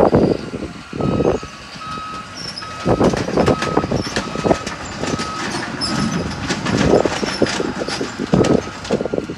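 A heavy machine's backup alarm beeping steadily, about one high beep every two thirds of a second, over loud irregular crashes and crunches of a wrecked building being torn down.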